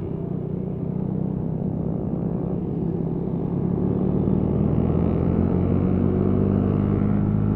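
Motorcycle engine running steadily on the move, growing louder about halfway through.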